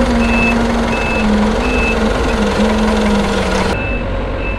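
Forklift reversing: its back-up alarm beeps about one and a half times a second over the steady running of its engine. The beeps pause for about two seconds a little past halfway, then start again.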